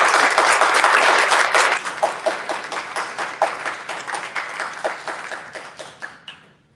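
Audience applauding, loud at first and then dying away gradually into scattered single claps near the end.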